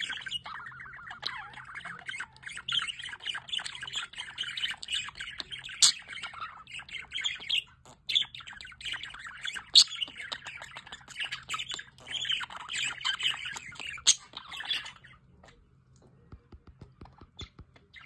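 Budgerigars chattering and warbling, with sharp squawks scattered through it; the chatter stops about fifteen seconds in, leaving only faint clicks.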